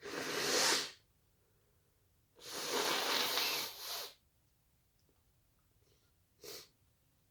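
A person sneezing: a sharp, breathy burst at the start and a longer one about two and a half seconds in, then a short breathy burst near the end.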